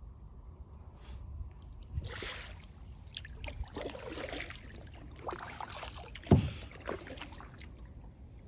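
Kayak paddling: several splashing paddle strokes in the water, with a sharp knock a little after six seconds in.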